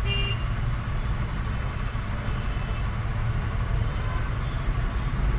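Steady low background rumble, with a brief high electronic tone right at the start.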